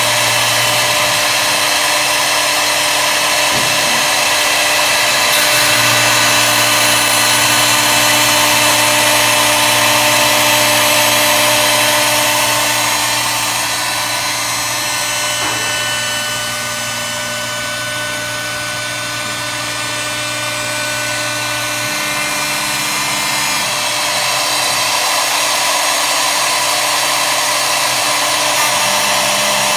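High-speed router spindle on a CNC wood lathe, running steadily while it mills a spiral groove into a turned wooden baluster: a continuous whine over cutting noise. It is somewhat quieter for several seconds in the middle.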